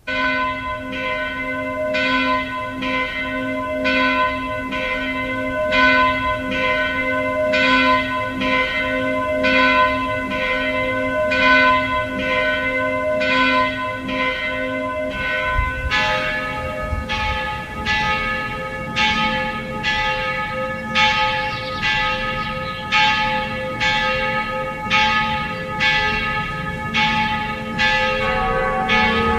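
Bells ringing in a steady, quick rhythm of about two strikes a second. About halfway through the pitch changes as a different bell or set of bells takes over, and it shifts again near the end.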